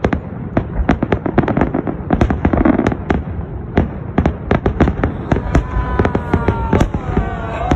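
Fireworks going off: a rapid, irregular string of sharp bangs and crackling pops. About five seconds in, a drawn-out whistle-like tone joins them and slowly falls in pitch.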